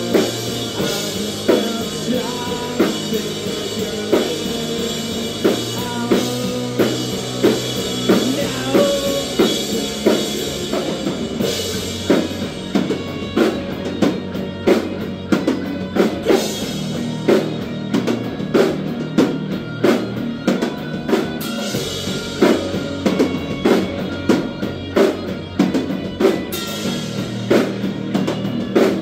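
Live rock band playing an instrumental passage: electric guitars over a drum kit. About halfway through, the drum beat settles into a steadier, busier pattern.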